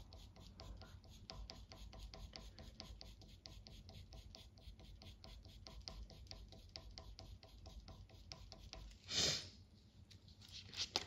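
Pencil scratching on paper in quick, short, repeated strokes, about six a second, as fur strokes are drawn over a pan pastel layer. The strokes stop with a brief louder swish about nine seconds in.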